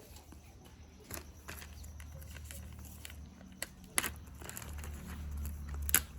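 Hands handling plastic toys and their packaging: scattered light clicks and rustling, with two sharper knocks, about four seconds in and near the end, over a low rumble.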